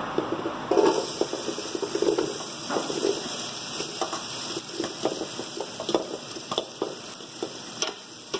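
Diced bacon spooned from a stainless-steel bowl into hot oil in a large aluminium pot: a sizzle starts just under a second in and keeps on, with the clink and scrape of a metal spoon against the bowl and pot.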